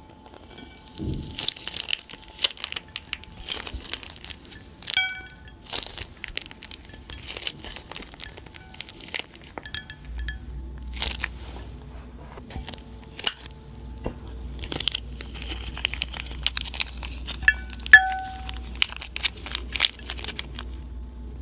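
Slime and plastic piping bags being handled: irregular crinkles, crackles and sticky clicking pops throughout, with a brief squeak about eight seconds from the end.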